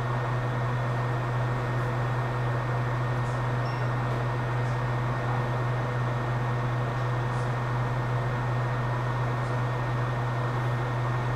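A steady hum and hiss of a running fan, with a strong low drone underneath and no change in level.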